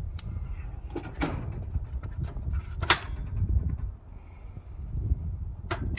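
A handful of sharp knocks and bangs over a low rumble: metal being handled while an old cooker is collected as scrap.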